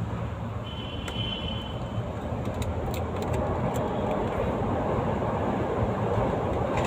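Steady low rumble of a running vehicle engine, with a rush of noise that swells about three seconds in and a few faint clicks.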